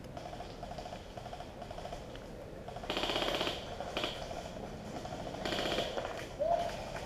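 Airsoft electric guns firing short full-auto bursts of rapid clicking shots, one burst about three seconds in and another about five and a half seconds in, with a brief burst between.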